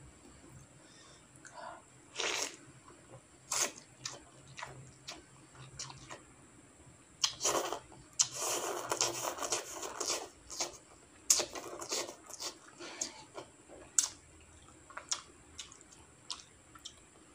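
A person slurping instant noodles in soup, with one long slurp about seven seconds in lasting some three seconds. Around it come scattered wet chewing smacks and short clicks.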